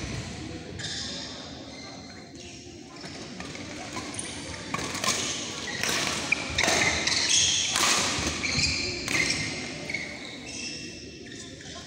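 Badminton play in a large hall: sharp racket-on-shuttlecock strikes about every second or so, irregular because several courts are in play, with short high squeaks from shoes on the court mats and a reverberant hall echo.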